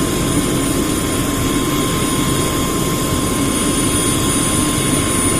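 Police helicopter's turbine engine and rotor running steadily, a constant high whine over the rotor noise.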